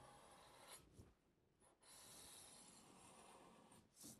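Faint hiss of a felt-tip marker drawn across paper: two long strokes with a pause between, then a short stroke near the end.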